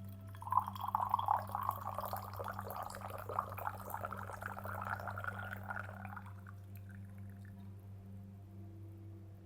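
Liquid pouring in a steady splashing stream, starting about half a second in and tapering off after about six seconds, over a steady low hum.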